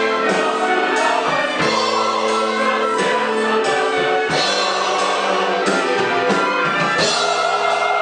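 A group of singers singing together in chorus, accompanied by an orchestra with violins, in sustained chords that change every second or so.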